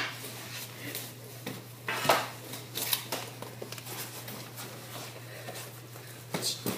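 Rustling and scattered knocks of hockey gear being handled, gloves and a hockey stick, with a few quick knocks near the end, over a steady low hum.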